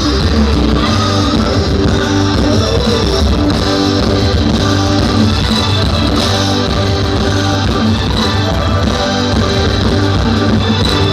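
Live band music: an instrumental passage led by guitar over bass, with no singing.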